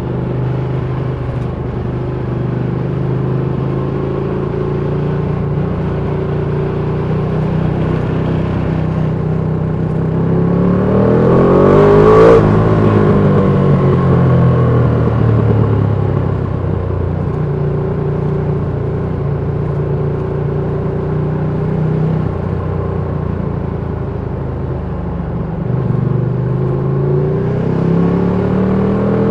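The Ducati Panigale V2's 955 cc twin-cylinder engine is running as the bike rides, heard from on board. There is a loud peak about twelve seconds in, where the pitches sweep up and then fall away. Near the end the revs rise again.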